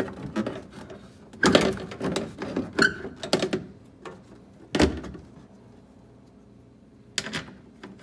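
Irregular knocks, clicks and clatter of hand tools and fittings on a car door as its bolts are put in, with a few sharp thunks.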